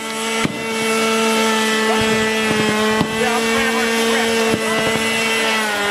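Small gas engine of an RC model airplane running steadily at high revs, its pitch dipping slightly near the end. A few sharp cracks of gunfire cut through it.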